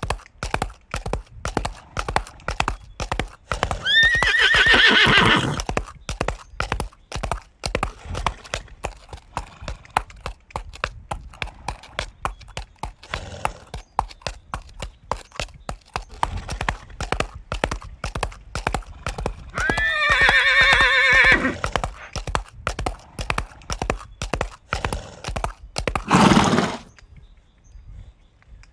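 Horse hoofbeats clattering in a quick, steady run, with a horse whinnying twice in long, wavering calls, about four seconds in and again about twenty seconds in. A short, loud, low sound comes near the end, after which the hoofbeats stop.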